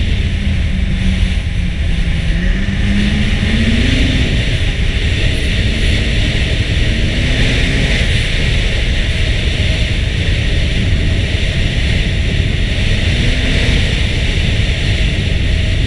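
Ski-Doo Renegade 800 snowmobile under way, heavy wind rushing and buffeting the microphone, with the two-stroke engine's note faintly rising and falling underneath as the throttle changes.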